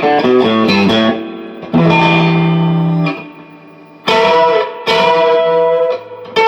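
Electric guitar with Lace Hemi Nitro humbuckers, neck and bridge pickups both coil-split and in phase, played through an amp: a quick run of picked notes, then a held note, then a few more notes left ringing from about four seconds in.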